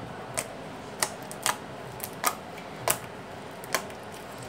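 Clear slime being worked by hand to make bubbles, giving off about seven sharp, irregularly spaced clicks and pops.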